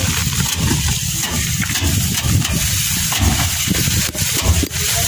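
Sheaves of harvested rice being beaten by hand against an overturned plastic drum to thresh out the grain: irregular dull thumps, under a steady rumble and hiss of wind on the microphone.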